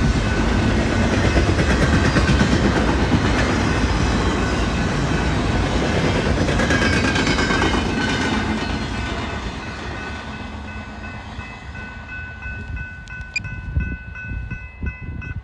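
BNSF intermodal freight train passing, its wheels clattering over the rail joints with a heavy rumble that fades away over the last several seconds. A few steady high tones are held near the end.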